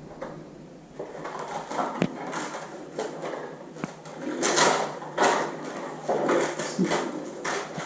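Rustling and handling of packaging and loose parts during an unboxing, in irregular bursts, with a few sharp clicks and knocks.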